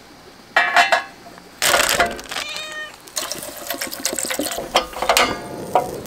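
A cat meowing, a short call about half a second in and a longer one near two seconds in. Then water pouring from a plastic bottle into a stainless-steel mess tin for about two seconds.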